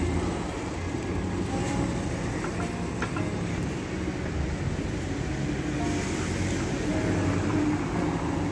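City street traffic: a steady rumble of passing vehicles, with a red double-decker bus driving off near the start and cars going by.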